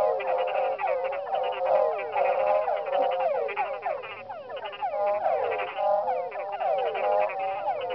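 A dense night chorus of many frogs and toads calling at once, a constant overlapping mass of short, pitched calls.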